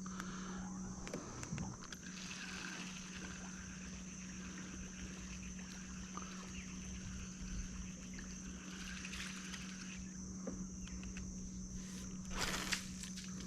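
Quiet creek ambience: a steady low hum and a steady high whine, with scattered faint clicks and a short rush of noise near the end.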